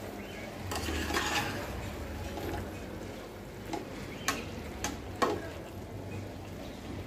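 A spatula stirring a thick vegetable curry in a stainless steel pot, scraping through it over a steady sizzle of the cooking curry. The spatula knocks against the pot three times, sharply, a little past halfway.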